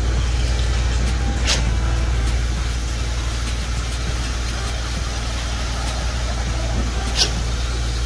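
Diesel engines of the concrete pump truck and mixer truck running steadily, a strong low drone. Two brief high-pitched sounds cut through it, about a second and a half in and near the end.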